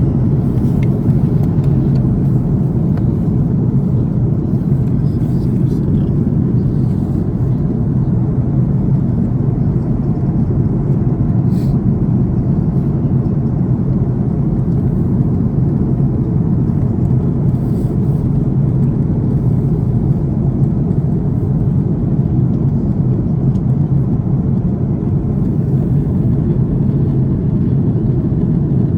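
Airbus A330 cabin noise in flight: a steady, deep roar of the engines and the air rushing past the fuselage, heard inside the passenger cabin.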